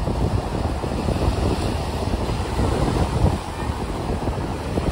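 Small waves breaking and washing onto a pebble beach, with wind buffeting the microphone in a steady low rumble.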